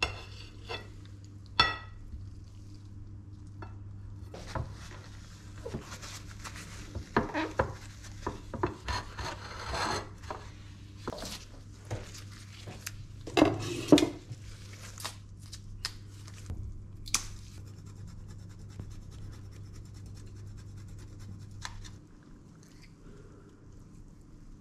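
Kitchen utensils clicking and knocking against a ceramic plate, and a block of Parmesan rasped over a grater, over a steady low hum that stops near the end.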